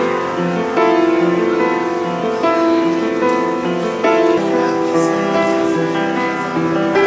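Upright piano played in the open: a slow melody over held chords, the notes changing every half second or so.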